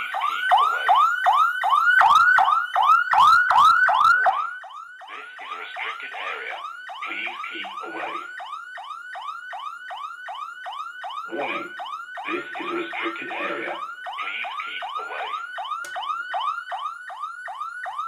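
Alarm siren and horn speaker sounding together, set off by a Hikvision IP camera's alarm output: a rapid, repeating, up-and-down electronic wail of about three sweeps a second, which the speaker calls very loud. It drops in level after about four seconds.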